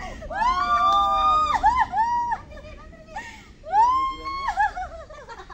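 Roosters crowing: two loud, drawn-out crows, the first starting about half a second in and the second near four seconds, each rising, held and then falling away.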